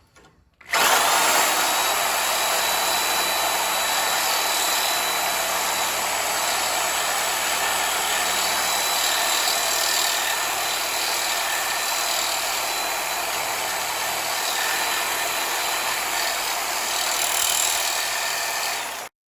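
Reciprocating saw cutting into the car's steel frame, running steadily with a thin whine. It starts about a second in and cuts off abruptly near the end.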